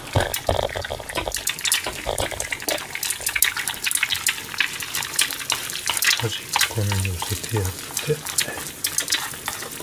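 Two eggs frying in hot oil in a pan, a steady sizzle full of quick crackling pops.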